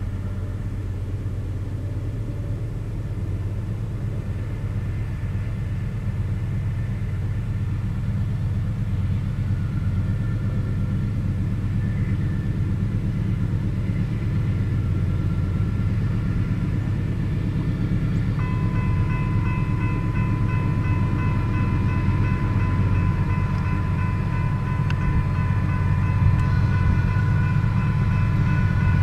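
Low, steady rumble of approaching GE diesel locomotives, growing slowly louder. About 18 seconds in, the grade crossing's warning bell starts ringing as the crossing signals activate, and it keeps ringing over the rumble.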